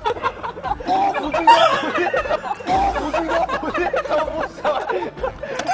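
Several voices chattering and laughing over one another.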